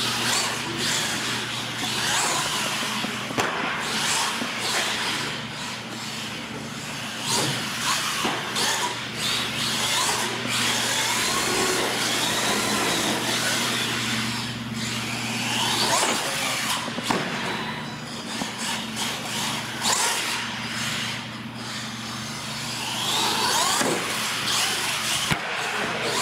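R/C monster truck's electric motor whining, rising and falling in pitch as the truck speeds up and slows. There are a few short knocks, and a steady low hum runs underneath.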